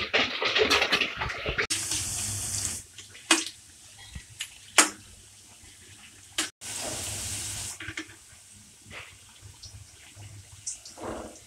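Pakoras deep-frying in a kadai of hot oil, sizzling and crackling, densest in the first second or two, while a metal spatula knocks and scrapes against the pan as they are turned. A steady hiss rises twice, about 2 and 7 seconds in.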